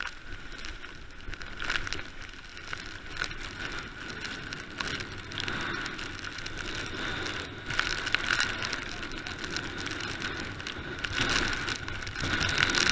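Mountain bike ridden fast downhill on a rough dirt track: tyres on the dirt and the bike rattling over bumps, with many short knocks, getting louder near the end.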